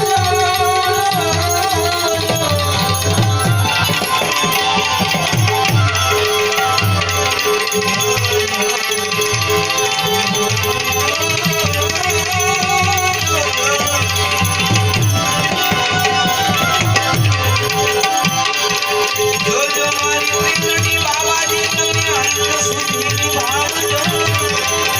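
Gujarati folk music: a wavering melody line over a held drone note, with steady drum strokes and rattling percussion. The lead is most likely an Indian banjo (bulbul tarang).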